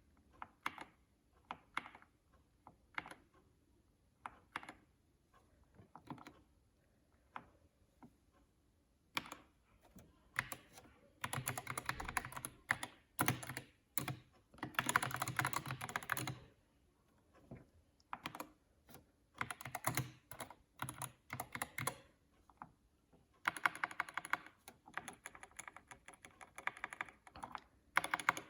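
Keys being pressed on a Dierya DK61 Pro 60% mechanical keyboard. Single key presses come about a second apart for the first several seconds, then fast bursts of typing follow with short pauses between them.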